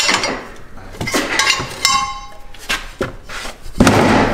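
Metal tire spoons clinking and scraping against a small wheel rim as a knobby tire is levered on, with a short ringing metallic clink about two seconds in and a louder knock near the end.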